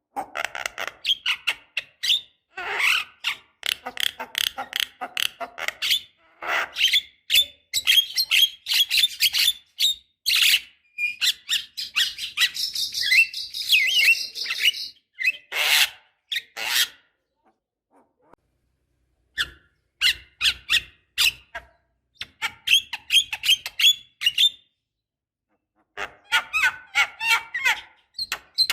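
Javan myna (jalak kebo) singing: a fast, jumbled chatter of rasping notes, clicks and whistles, broken by two short pauses.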